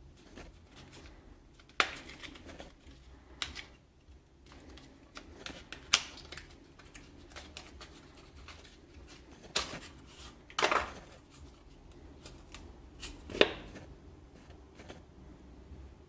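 Small cardboard box being handled and opened by hand: rubbing and scraping of card, with several sharp clicks and scrapes a few seconds apart and one longer scrape about ten and a half seconds in.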